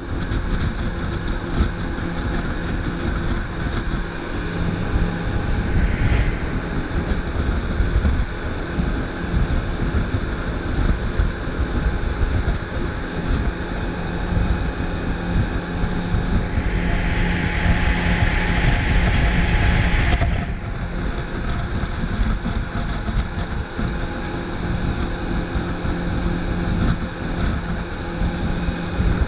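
Motorboat engine running steadily under way, with wind buffeting the microphone and water rushing past the hull. A louder hissing rush lasts about four seconds past the middle.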